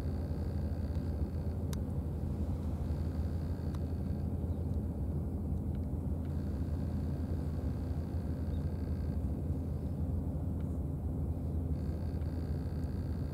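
Outdoor background noise: a steady low rumble, with a faint thin high tone that drops out twice and returns, and a few faint clicks.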